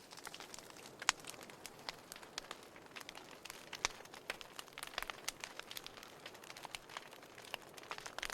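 Wood fire burning in a fireplace: a soft steady hiss with irregular sharp crackles and pops from the burning logs.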